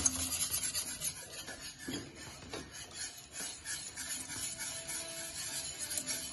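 A whisk scraping round a stainless steel saucepan as béchamel sauce is stirred, in repeated uneven strokes.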